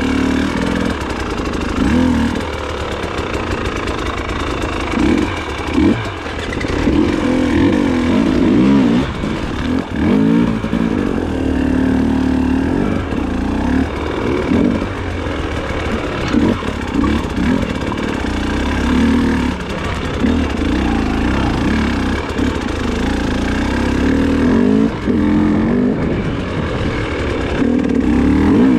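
Off-road motorcycle engine running under load, its pitch rising and falling as the throttle is opened and closed over and over while the bike is ridden.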